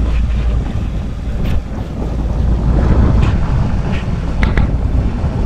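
Heavy wind buffeting the microphone aboard an offshore boat, a loud, steady rumble with the wash of water underneath and a few faint clicks.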